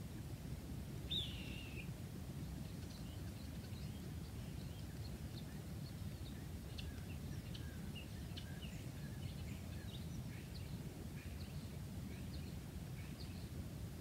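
Wild birds chirping in scattered short, high notes over a steady low rumble; about a second in, one louder call slides down in pitch.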